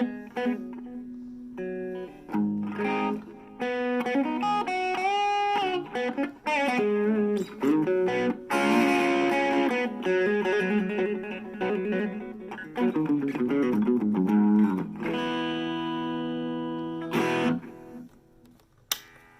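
Harley Benton CST24-HB electric guitar played through a Blackstar Fly 3 mini amp: single-note lines with string bends, a strummed chord about halfway through, and a chord held for a couple of seconds before the playing stops near the end.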